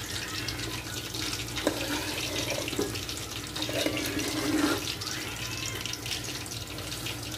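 A serving spoon stirring and scraping cooked biriyani rice in an aluminium pressure cooker: soft rustling with many small scrapes, over a steady hiss.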